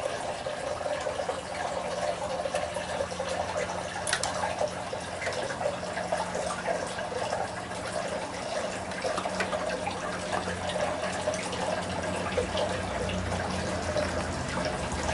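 Steady sound of running, trickling water, with a faint low hum underneath.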